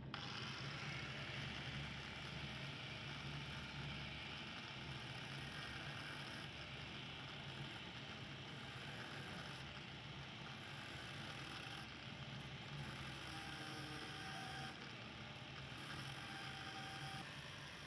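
Small electric cutter with an abrasive cutting disc running and cutting thin printed tin-plate sheet: a steady motor hum under a grinding hiss, the hiss dipping briefly several times.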